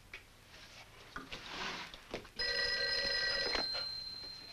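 Desk telephone bell ringing once: a steady ring of about a second starting about halfway in, then dying away as the receiver is lifted. A soft rustle comes shortly before it.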